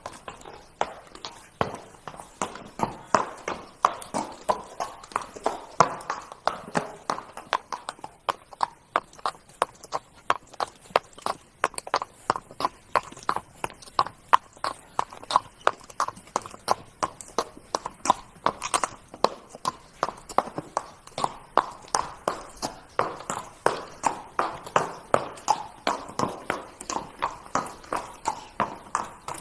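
Horse's hooves trotting, a steady, even beat of hoofbeats.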